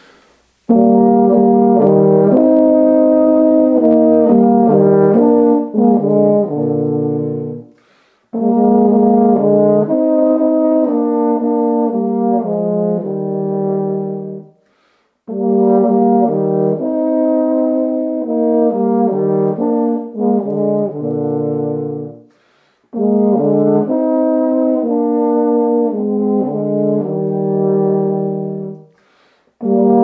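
Two tenor horns playing a slow duet in harmony with sustained notes. It comes in four phrases of six to seven seconds each, with short breaks for breath between them.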